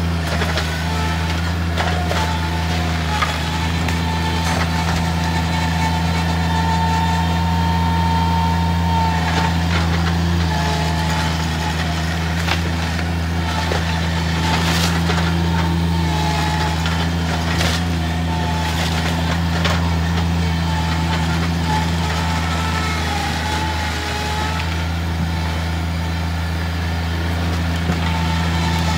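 Bobcat compact track loader's diesel engine running steadily, with a whine that wavers in pitch. A few sharp knocks come in the middle stretch.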